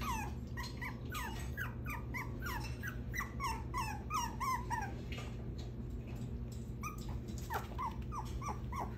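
Six-week-old poodle puppy whining to get out of its pen: a rapid run of short, high, falling whimpers, two or three a second, that breaks off about five seconds in and starts again near the end.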